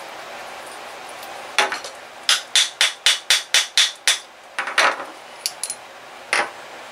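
Sharp taps driving the crankshaft out of a Webra T4 60 model engine's crankcase: a single knock, then a quick run of about eight taps at roughly four a second, then a few scattered taps.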